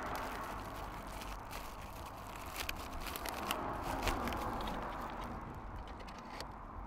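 Faint rustling of a plastic packaging bag with scattered small plastic clicks as colour grille inserts are handled and clipped onto a car's grille slats, over a low outdoor rumble.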